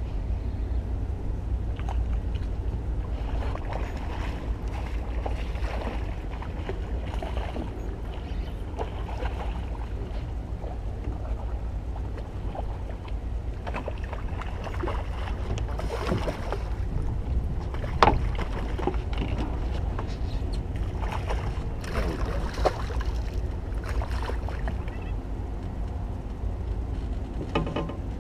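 A steady low rumble of wind and water against a small skiff's hull, with scattered knocks and splashes as a hooked redfish is played beside the boat. A sharp knock comes about eighteen seconds in.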